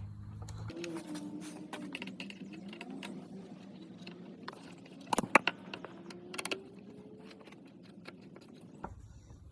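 Light clicking and tapping of hands and tools working plastic motorcycle bodywork and its fasteners, with a sharper cluster of clicks a little past halfway.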